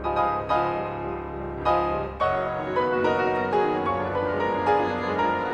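Background music: a piano playing slow notes that ring on.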